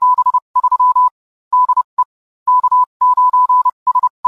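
Morse code: a single steady beep keyed on and off in dots and dashes, sending the amateur radio sign-off "73 de K9SWX", with short pauses between the words.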